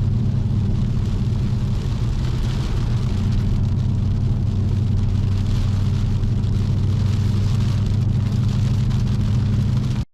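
2012 Ford Boss 302 Mustang's 5.0-litre V8 cruising at a steady highway speed with a constant low drone and road noise, holding one pitch with no revving. The sound cuts off abruptly at the end.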